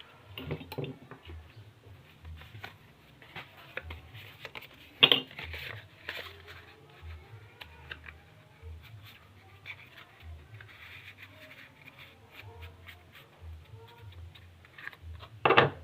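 Scattered light clicks and taps of hand work with tools and small parts, with two sharp knocks, one about five seconds in and a louder one near the end.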